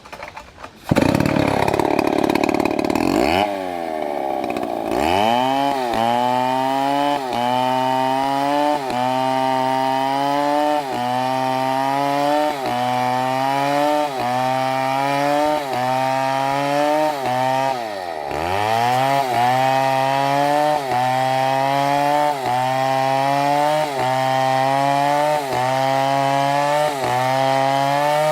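Large two-stroke chainsaw cutting into wood: the engine starts at high revs about a second in, then settles into the cut with its pitch sagging under load and recovering about once a second, with one deeper sag past the middle.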